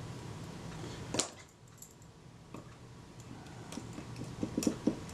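Small metallic clicks and light ticks of a jeweller's screwdriver working a tiny screw into the metal top plate of a Kodak Retina IIIc camera: one sharper click about a second in, then a run of faint ticks near the end.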